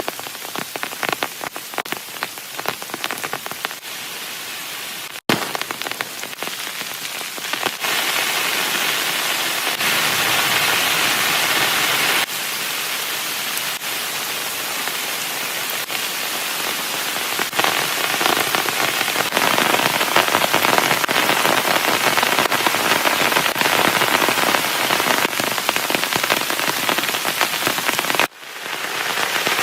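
Heavy rain pouring down, a dense steady hiss of drops. In the first few seconds separate drop strikes stand out. The sound jumps abruptly in level and character several times.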